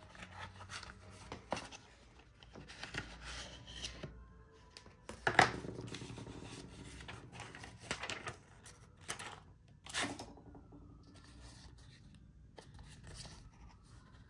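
Product packaging being opened and handled: scrapes, tearing and light clicks, with a sharp knock about five seconds in and another about ten seconds in.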